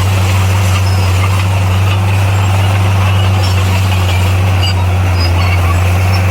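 Komatsu bulldozer's diesel engine running at a steady, unchanging pitch with a deep drone.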